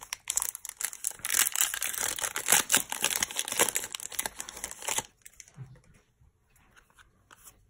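Foil wrapper of a Pokémon trading card booster pack crinkling and tearing as it is ripped open, for about five seconds. After that, only faint rustles and ticks of the cards being handled.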